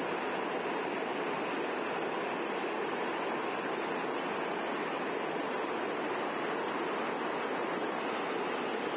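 Muddy floodwater rushing in a fast, churning torrent: a steady, dense noise that never lets up.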